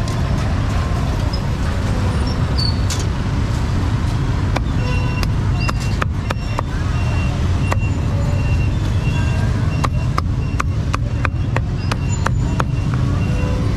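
Busy street ambience: a steady low traffic rumble throughout, with a run of sharp clicks and knocks from about five seconds in and faint short high beeps.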